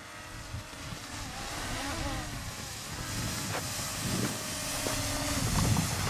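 Quadcopter drone buzzing overhead, its motor whine wavering up and down in pitch. From about halfway through it is joined by a growing hiss of skis sliding over soft summer snow as the skier glides close.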